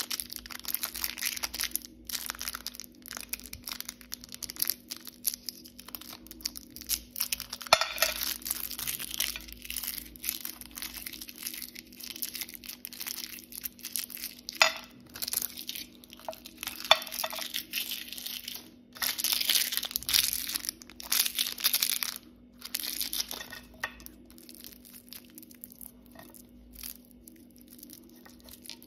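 Plastic candy wrappers crinkling and crackling in the hands as wrapped sweets are twisted open and handled, in irregular bursts that thin out near the end. A faint steady hum runs underneath.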